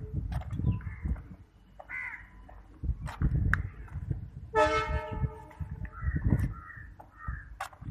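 Crows cawing several times, with one loud harsh caw about halfway through, over a low rumble.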